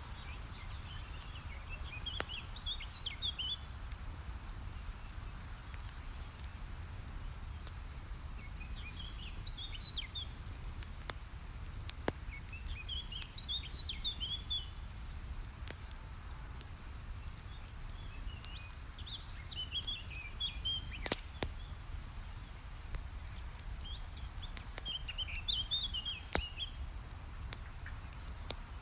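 A small songbird sings short twittering phrases about every five seconds over a campfire. The fire gives a steady low rustle and a few sharp pops and crackles.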